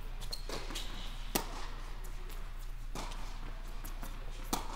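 Tennis rally on an indoor hard court: the ball is struck by racquets and bounces, a sharp pop about every second and a half, the loudest a little over a second in, echoing in the large hall over a steady low hum.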